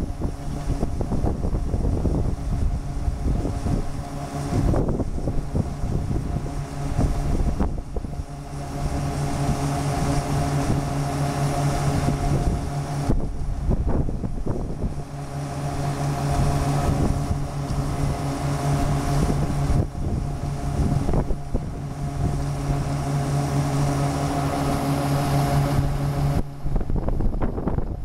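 Steady drone of harvest machinery as the John Deere 7721 pull-type combine runs and augers wheat into a grain truck, with a strong hum that drops out briefly about halfway and again near the end. Wind rumbles on the microphone.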